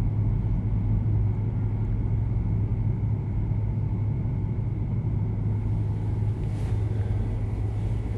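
Steady low hum and rumble of background noise, with a faint high tone above it and no voice.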